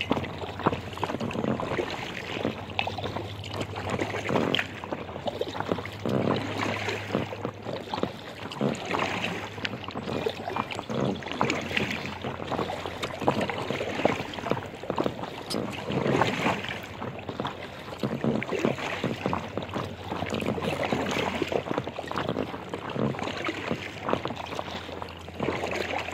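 Kayak paddle strokes splashing in the water about every two seconds, with water lapping against the hull of an inflatable kayak under way.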